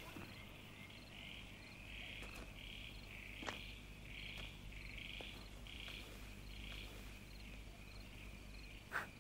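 Faint night-time chorus of rhythmic chirping, pulsing about once every 0.7 seconds and then settling into a steady trill. Two faint knocks come through, one about three and a half seconds in and one near the end.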